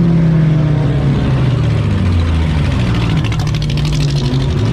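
Demolition derby car's engine running and revving from the driver's seat, its pitch sliding down and then back up. About three seconds in, a fast rattle joins it.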